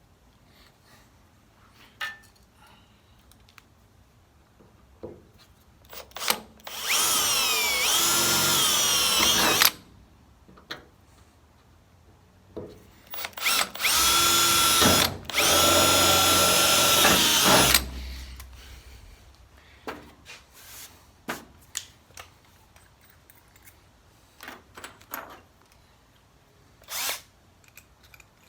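Power drill boring a pilot hole in a Jeep CJ's center-punched sheet metal for a hood latch, in two long runs, the first about 7 seconds in and the second from about 13 seconds with a brief break in the middle. Its motor whine dips in pitch under load and picks back up; small handling clicks come in between.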